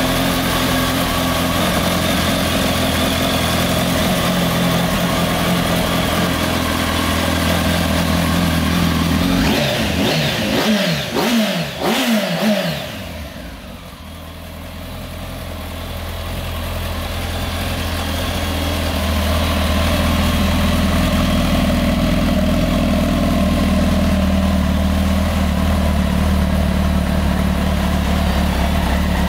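Kawasaki ZX-10R's inline-four engine idling steadily, blipped a few times in quick succession about ten seconds in, then settling back to idle.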